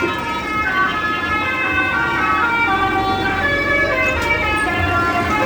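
Telolet bus horn, a set of musical air horns, playing a tune of held notes that step from pitch to pitch every half second or so, over a low steady rumble.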